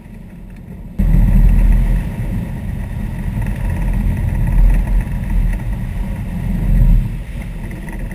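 Sportfishing boat under way: engines and rushing wake make a steady low rumble that turns much louder about a second in.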